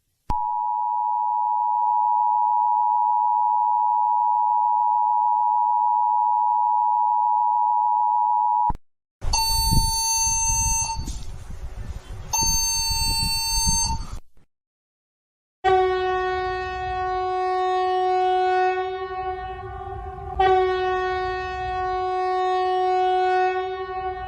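A sequence of electronic emergency-alert tones. First a steady, even tone for about eight seconds. After a short gap comes a harsher, buzzier tone with a break in its middle, and after another gap a lower, horn-like tone with many overtones, held for about nine seconds.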